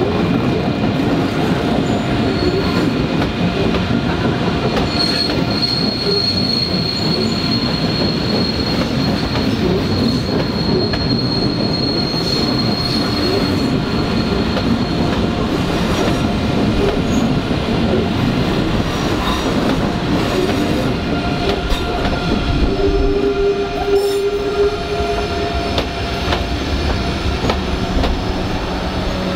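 Passenger coaches rolling past on a curved track, with steady rumbling wheel noise and wheel flange squeal. A high squeal holds from a few seconds in to about halfway. A lower squeal sounds briefly near the end.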